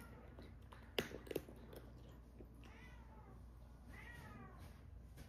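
A cat meowing about three times, short calls that rise and fall in pitch, with two sharp clicks about a second in.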